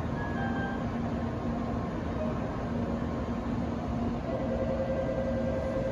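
Steady hum and rumble of N700A Shinkansen trains standing at a station platform, with a second, higher steady tone coming in about two-thirds of the way through.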